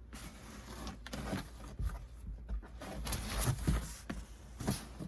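Cotton T-shirts being handled and unfolded: irregular rustling swishes of fabric with a few sharper flaps, the loudest about three and a half seconds in and again near the end.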